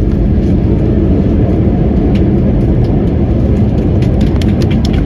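Loud, steady low rumble inside an airliner's cabin from the engines and rushing air, with light clicking and rattling of cabin fittings that grows busier in the second half.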